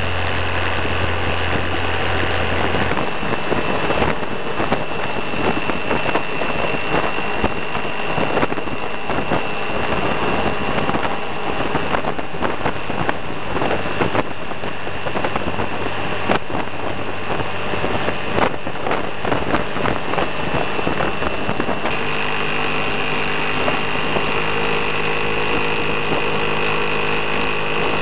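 Steady engine and road noise of a vehicle on the move, with a constant high whine. A steadier engine hum comes in near the end.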